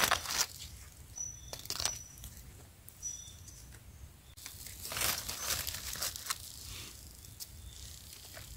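Dry leaf litter rustling and crackling in several bursts as a hand digs through it to pick a mushroom; the longest burst comes about five seconds in. A few short high chirps sound in the first few seconds.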